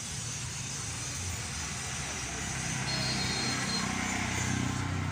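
Isuzu 4HF1 four-cylinder diesel engine running, its speed and loudness rising a little about halfway through, with a hiss above the engine note. This is the engine whose sound the uploader calls bad, alongside overheating.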